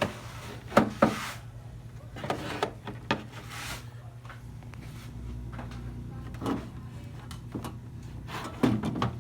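Scattered knocks and clicks of handling, six or so in all, with two brief rustles, over a steady low electrical hum.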